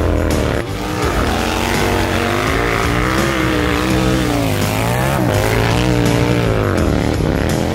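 Go-kart engine running hard and revving up and down repeatedly, its pitch rising and falling every second or so.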